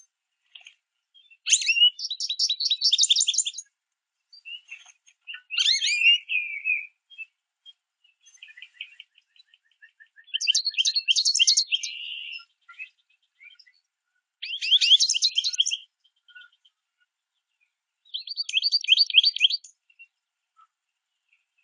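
American goldfinches chirping and singing: about five bouts of rapid, high, chattering calls a few seconds apart, with short quiet gaps between them.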